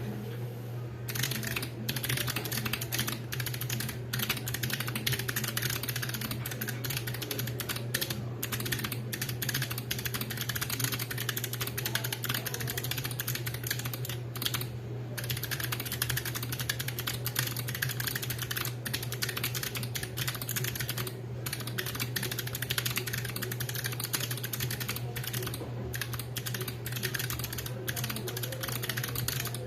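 Fast, continuous typing on an RS40 gasket-mount custom mechanical keyboard with an acrylic case and plate and unlubed Kailh Box White clicky switches, broken by a few brief pauses. A steady low hum runs underneath.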